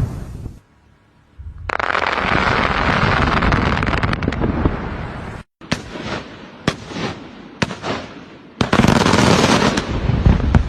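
Industrial rock blasting: a loud blast with a few seconds of noisy rumble, then after an abrupt cut a string of sharp bangs from a timed detonation sequence, and another loud blast near the end.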